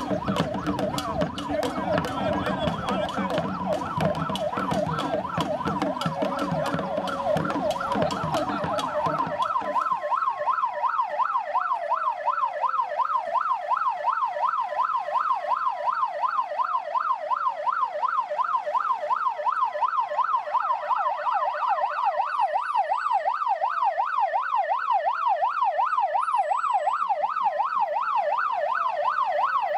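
Emergency-vehicle sirens: one in a fast yelp, another in a slower rising-and-falling wail, sounding together. For about the first nine seconds a rumbling noise with many sharp clicks runs under them, then drops away and leaves the sirens alone.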